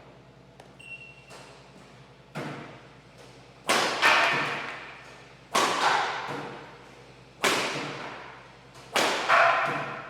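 Badminton smashes with a Li-Ning Windstorm 500 racket: five sharp hits on the shuttlecock about every two seconds, the first lighter, each followed by an echo dying away.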